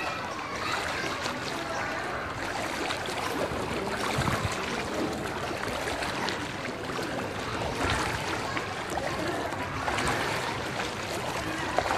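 Floodwater sloshing and splashing steadily as someone wades through a flooded street, with a few louder splashes.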